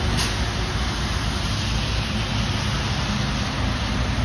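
Traffic on a wet road: a tractor-trailer's diesel engine running as it passes, with tyres hissing on the wet pavement, over steady traffic noise.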